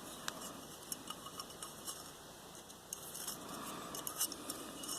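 Light, scattered clicks and ticks of wire being handled as it is wrapped around a part and threaded through its loop for a clamp.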